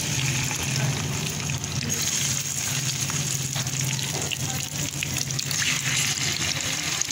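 Hot ghee sizzling and spitting in a frying pan as raw chicken pieces go into it, a steady crackling hiss. A steady low hum runs underneath.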